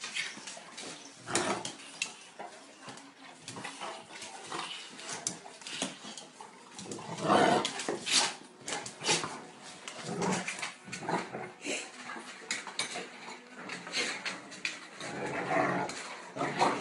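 Two Tosa dogs in a dominance scuffle: claws clicking and scraping on a tiled floor, broken by growls and snarls that peak about halfway through and again near the end.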